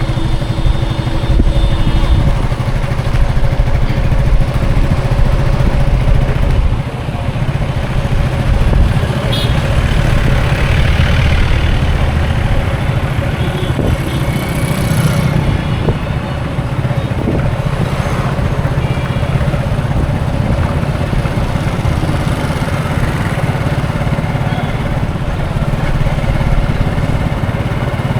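Busy road traffic: the engines of passing vehicles run in a continuous low rumble, with a brief hiss about halfway through.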